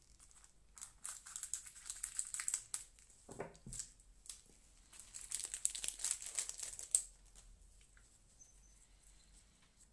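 Foil booster-pack wrapper crinkling and tearing as it is opened in gloved hands, in several bursts of rustling that die away about three seconds before the end.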